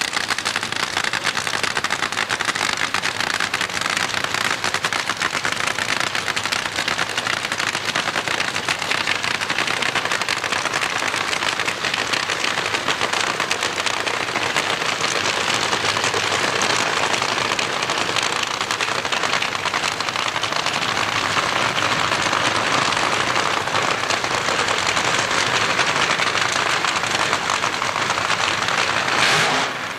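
Drag-racing engine running at close range, heard as a loud, dense, steady crackle.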